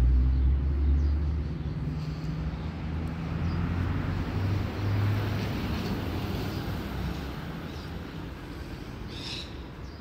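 Low engine rumble of a nearby motor vehicle, loudest at the start and slowly fading away. A bird gives a short call near the end.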